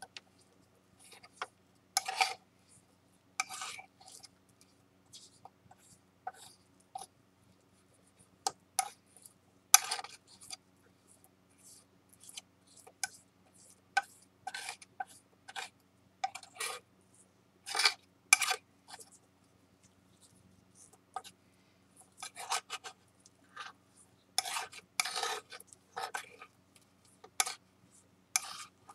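Metal spatula scraping and tapping on a flat work board in short, irregular strokes, mixing flour into shin urushi lacquer to make a kintsugi repair paste.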